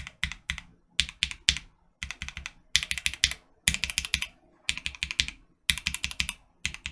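Typing on a mechanical keyboard fitted with Durock Lavender linear switches, some factory and some lubed with Krytox 205g0 and filmed, struck in quick runs of keystroke clacks with short pauses between them.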